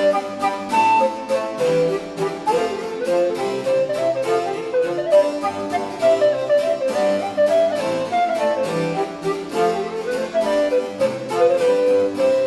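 Background music: baroque-style harpsichord playing a steady stream of quick plucked notes.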